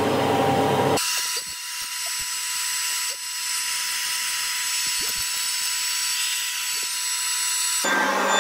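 Centauro Alfa CNC machine's router spindle running and cutting notches into a solid Sapele window sill: a steady high hiss with one steady tone through it. The sound changes abruptly about a second in and again near the end.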